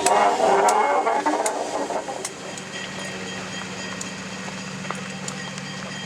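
Train on the move: a louder mix fades over the first two seconds, leaving a steady low hum with scattered sharp clicks.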